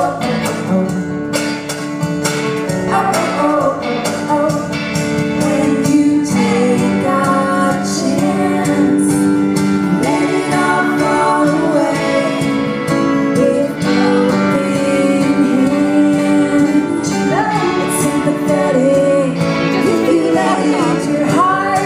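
Live band playing: electric and acoustic guitars and a drum kit, with women singing over them.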